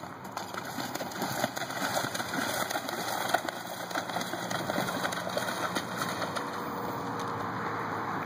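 A horse moving through a shallow pond, its hooves splashing the water in a quick run of splashes that eases off near the end.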